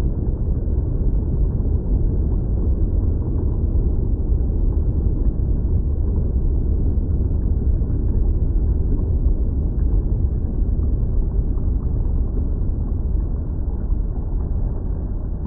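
Bubbling volcanic lava: a steady, deep rumble with faint scattered pops.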